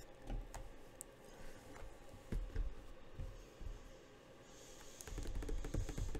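Sealed cardboard trading-card boxes being handled on a table: scattered light taps and soft knocks. In the last couple of seconds a dense rustling crinkle of plastic shrink-wrap as fingers work at a box's wrapper.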